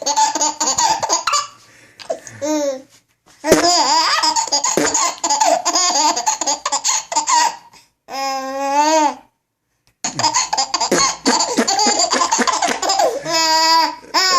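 A baby laughing hysterically in repeated bursts, in turn with an adult's blown, mouth-made farting noises. There is a brief pause about nine seconds in.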